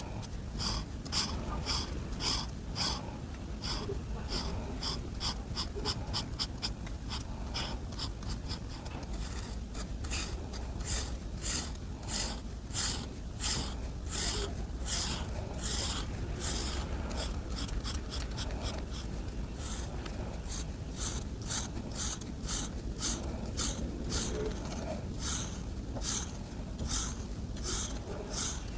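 Coloring strokes scratching on paper, quick back-and-forth strokes at roughly two to three a second, running on steadily.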